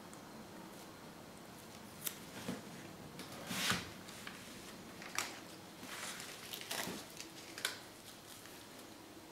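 Scattered clicks, taps and short rustles from handling a plastic squeeze bottle of acrylic paint, about a dozen small sounds. The longest and loudest comes just under four seconds in.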